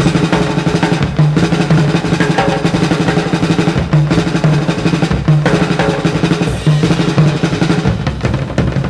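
Music with prominent drums and a busy, steady beat.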